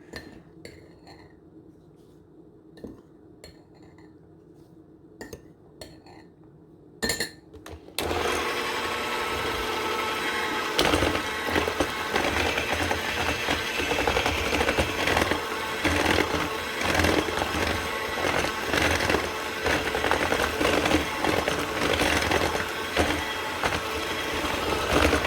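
A few light clinks of utensils on a bowl, then about eight seconds in an electric mixer starts and runs steadily, beating basbousa batter of eggs, sugar, milk, oil and semolina. The batter is still runny at this stage and more semolina is still to be added.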